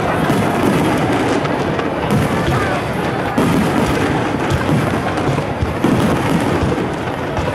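Aerial firework shells bursting in quick succession: a dense, continuous run of booms and crackling, with sharper bursts about three and a half and six seconds in.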